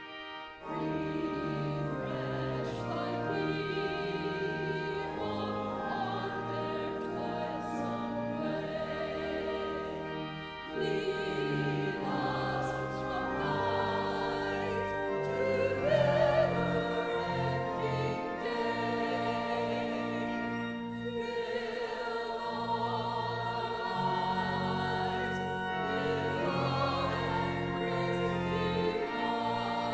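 Voices singing a hymn with instrumental accompaniment, in long held phrases with a brief break about eleven seconds in and another about twenty-one seconds in.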